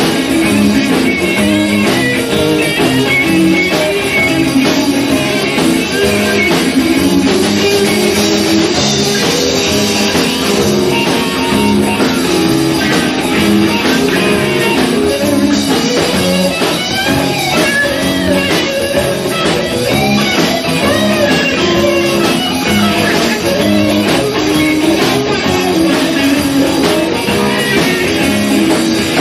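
Live blues-rock band playing, with electric guitar to the fore, in a rough-sounding amateur recording.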